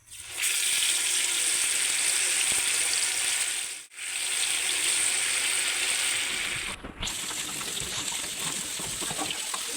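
Food sizzling as it fries in hot oil: a steady hiss that cuts out briefly about four seconds in and again about seven seconds in. After the second break it is a little quieter, with small clicks.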